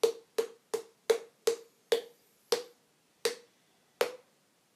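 Hollow, pitched mouth pops from the 'poki poki' body-percussion sound: a hand worked against lips held in an O shape. About nine pops, all at the same pitch, come quickly at first and then space out.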